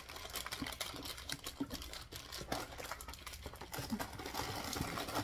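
Snack packaging handled and rustled, a fast run of small crinkling clicks.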